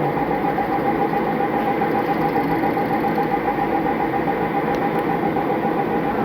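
Lathe running steadily: a constant machine drone with a steady whine over it.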